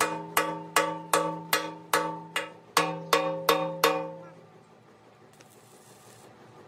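Hammer blows on the steel of an excavator bucket, about two and a half a second, each one ringing like a bell. The hammering stops about four seconds in.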